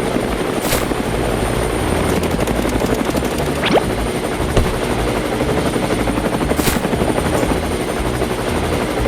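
A small motor running steadily with a fast, even chatter, like a tiny helicopter. About three and a half seconds in there is a brief rising whistle, and there are two short hisses, one near the start and one near the end.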